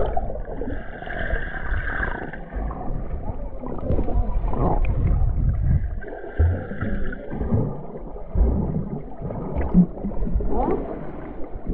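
Muffled underwater sound picked up by a submerged camera: an uneven, low rumble of moving water with gurgles, swelling and fading as the camera is moved through the water.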